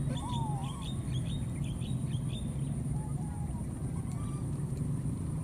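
Animal calls: a run of short, high chirps, about three a second, for the first two seconds or so, with a few short cries gliding up and down near the start. Under them runs a steady low hum and a high, even drone.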